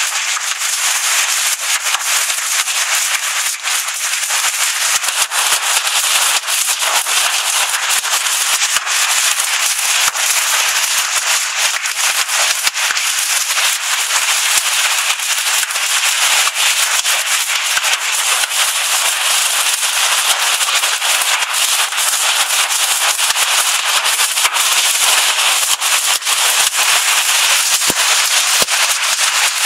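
Hailstones pelting the carport roof and the ground: a loud, steady, dense crackle of countless small hits.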